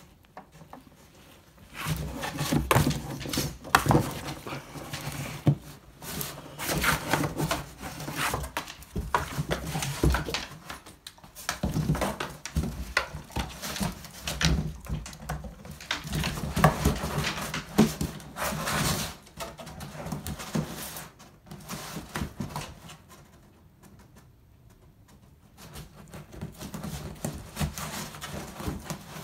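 A dog tearing and chewing at a cardboard box: many short, irregular crackles, rips and scrapes of cardboard under its paws and teeth, with a quieter pause of a few seconds about three-quarters through.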